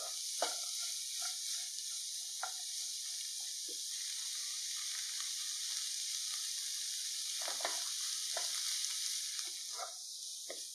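Shredded cabbage, onion and green peas sizzling in oil in a pan while a wooden spatula stirs them, with a steady high hiss and a handful of short scrapes and knocks of the spatula against the pan.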